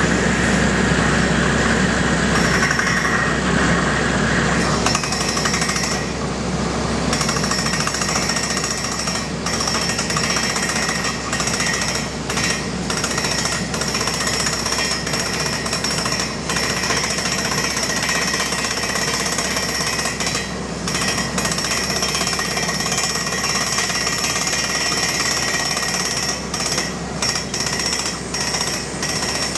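Yutong drilling rig at work: a loud, dense, unbroken mechanical clatter with a steady high whine running through it.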